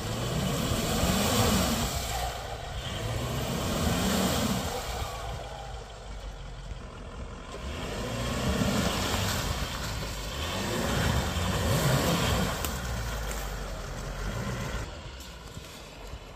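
Diesel engine of a Mercedes-Benz G-Class SUV working off-road, its note rising and falling several times as the driver gets on and off the throttle.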